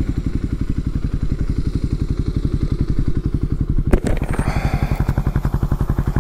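Suzuki motorcycle engine idling with an even, rapid putter. About four seconds in there is a single knock, followed by a brief scraping rustle.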